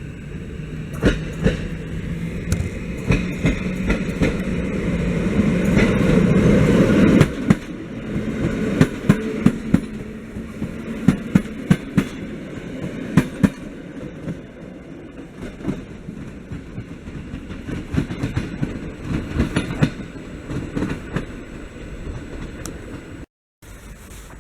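Regional passenger train passing close by: the rumble and a steady low hum build to a peak about seven seconds in, then the wheels click over the rail joints as the cars go by and the sound slowly fades. The sound drops out briefly near the end.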